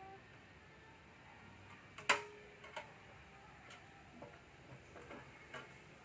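Small sharp clicks and taps of hand work on a breaker box. There is one loud click with a brief metallic ring about two seconds in, then a few fainter ticks at irregular intervals.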